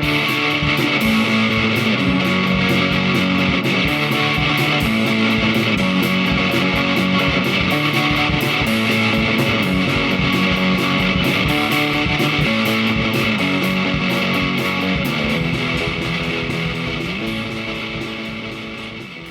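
Intro music: driving rock music with electric guitar and a steady beat, fading out near the end.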